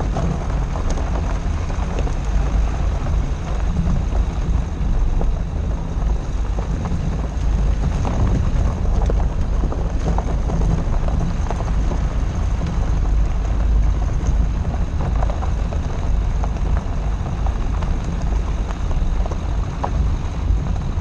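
Dacia Duster driving over a loose gravel and dirt track, heard from outside the body by the wheel: a steady low rumble of tyres on stones and wind on the microphone, with scattered clicks of gravel.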